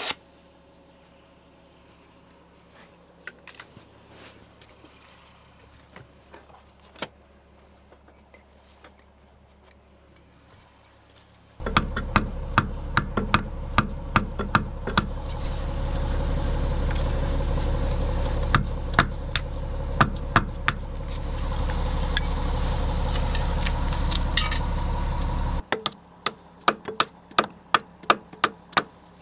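Hammer tapping a steel punch against the torch-cut cotter pin of an excavator's steel track master pin: a run of sharp metallic taps, faint and scattered at first, then loud and quick. A steady rushing noise sits under the taps through the middle stretch and stops suddenly near the end, while the taps go on.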